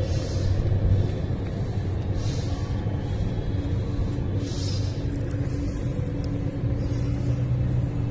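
Steady low background rumble with a hum, the kind made by nearby road traffic, with three short soft hissing puffs in the first five seconds.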